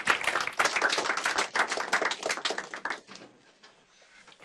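Audience applauding: a dense patter of many hands clapping that thins out and dies away about three seconds in.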